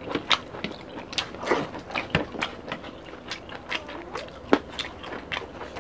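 Close-up eating sounds of people eating by hand: chewing, biting and lip smacking, heard as a steady run of short clicks.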